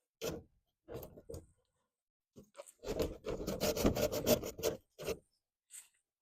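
A cut-out section of wood-framed, sided wall scraping and rubbing against the opening as it is lifted out: a few short scrapes, then a longer run of quick rasping strokes in the middle, then two more short scrapes.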